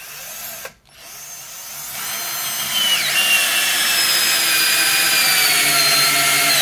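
WORKPRO 12V cordless drill driving a screw into wood. The motor runs briefly, stops for a moment, then starts again and builds to a steady whine that slowly drops in pitch, cutting off suddenly near the end.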